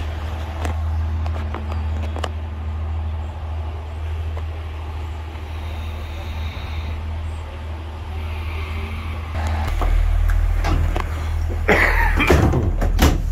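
Pacer railbus diesel engine running with a steady low drone and scattered clicks and knocks. About ten seconds in it grows louder and deeper, with a cluster of knocks near the end.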